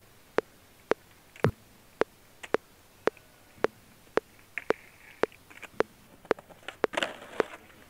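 A steady series of short, sharp ticks, about two a second, with little else between them.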